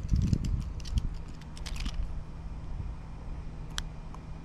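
Hands handling a popping-cork fishing rig and its line: soft scattered clicks and rustles over a low rumble, with one sharp click near the end.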